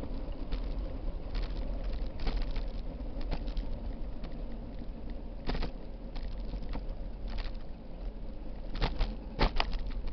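Rolling rumble and rattle of a bicycle riding a paved bike path, heard through a camera mounted on its handlebars, with irregular clicks and knocks as it jolts over bumps. A quick run of sharper knocks comes near the end.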